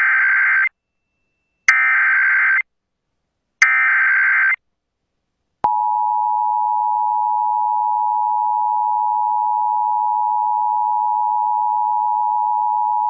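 Start of an Emergency Alert System broadcast. Three bursts of SAME digital header data, each about a second long, encode a Child Abduction Emergency (Amber Alert). About five and a half seconds in, the steady two-tone EAS attention signal (853 and 960 Hz) starts.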